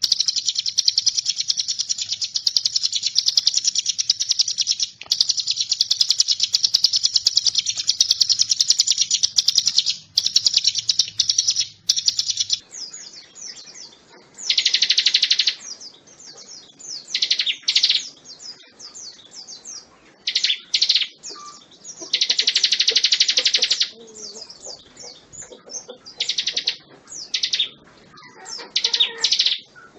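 Ciblek gunung (a mountain prinia) singing: a fast, high, unbroken trill for about the first twelve seconds, then shorter bursts of song of a second or two each, with gaps between.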